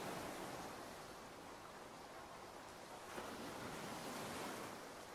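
Ocean surf with rain: a steady hiss that swells as a wave washes in at the start and again about three seconds in.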